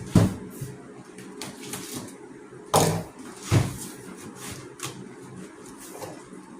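Knocks and thumps of things being handled and set down while unpacking a cardboard box, the loudest about a fifth of a second in, near three seconds and about three and a half seconds in, over the steady hum of an electric fan.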